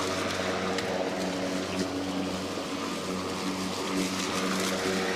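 Worx WG761E cordless lawnmower's electric motor running steadily: a constant hum with a hiss over it.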